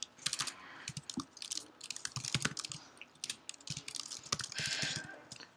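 Typing on a computer keyboard: an irregular run of quick keystrokes, with a short hiss near the end.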